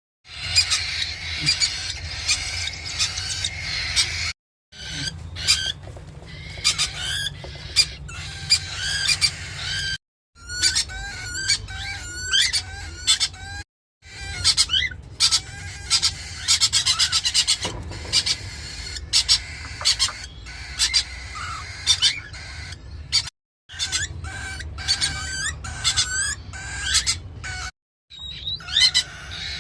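Birds chirping and calling in many short rising and falling notes over a steady low hum. The sound drops out briefly five times where clips are joined.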